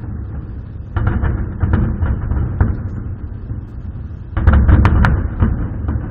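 Fireworks going off: deep booms with sharp crackling cracks, one burst about a second in and a louder one around four and a half seconds in.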